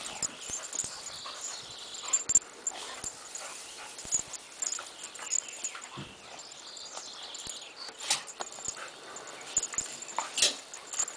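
Loose dry cut grass rustling and crackling in irregular bursts as two dogs roll and scramble about in a heap of it.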